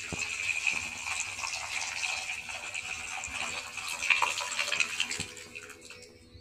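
Tamarind water poured in a steady stream into a metal pan, splashing over the tempered spices, then tapering off and stopping about five to six seconds in.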